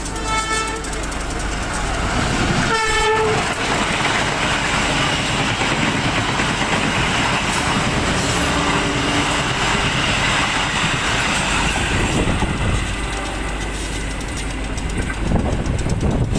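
Commuter train running, a steady rushing rumble of the carriages on the rails, with a brief pitched tone about three seconds in.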